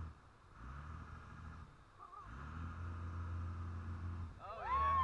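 Boat engine running with a low drone that drops out briefly several times, over wind and wake splash. Near the end, high-pitched excited whoops rise and fall in pitch.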